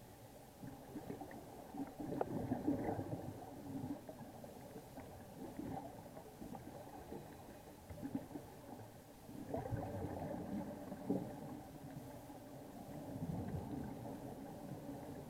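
Scuba diver's exhaled bubbles gurgling underwater from the regulator, heard through the camera housing. Louder bursts of bubbling come about two seconds in and again near ten seconds, with a weaker one near the end.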